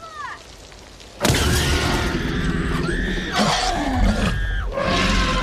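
Film sound effect of a Tyrannosaurus rex roaring at close range, mixed with children's high-pitched screams. It breaks in suddenly about a second in, after a quieter moment.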